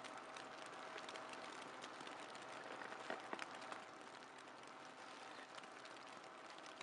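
Faint steady hiss with many small crackles and ticks scattered through it, and a few louder clicks about three seconds in.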